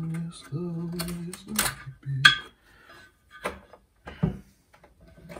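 A Tesla ARM 9408 loudspeaker is being taken apart with hand tools. For about the first two seconds a steady low tone is held in short stretches, then come a few sharp metallic clicks and knocks.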